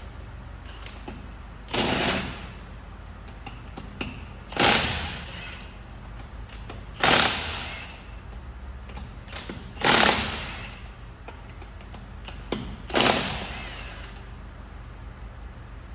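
Impact wrench rattling in five short bursts a few seconds apart, one for each of the five lug nuts, as the front wheel is unbolted.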